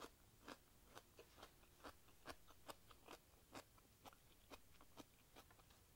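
Faint, crunchy chewing of a mouthful of raw cucumber, close to the mic, with short irregular crunches about two a second.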